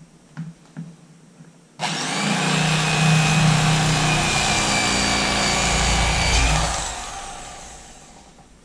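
A few light clicks, then an electric fillet knife switches on about two seconds in and runs steadily with a low hum and a high whine as its blades cut between a white bass fillet and its skin. It dies away gradually over the last two seconds.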